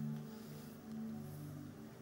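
Soft background music of held chords, the notes shifting every half second or so.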